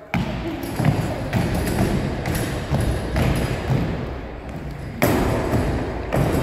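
Repeated thuds and footfalls of people jumping onto and landing off wooden gym benches on a wooden floor, about two or three impacts a second, echoing in a large hall.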